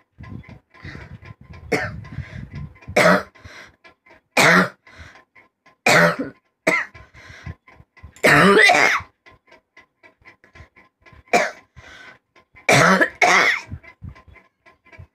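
A person coughing repeatedly: about eight loud coughs a second or two apart, one of them drawn out longer near the middle, with fainter sounds in between.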